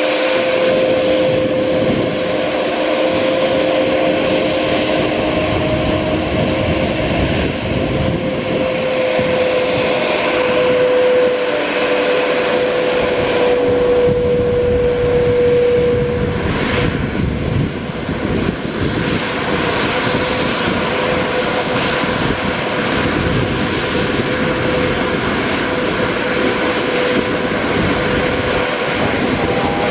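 Airbus A330neo's Rolls-Royce Trent 7000 turbofan engines running at low thrust as the airliner taxis on the runway: a steady jet whine over a broad rumble, the whine dipping slightly in pitch partway through.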